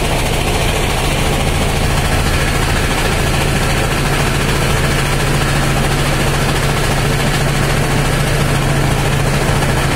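Riverboat engine running steadily under way, an even, loud drone with a strong low hum and a hiss above it.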